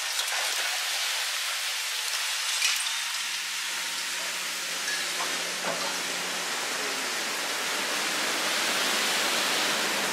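Distant long-reach Caterpillar 345C L excavator working on a concrete silo: a steady hiss, with a faint low engine hum through the first half and a couple of small knocks.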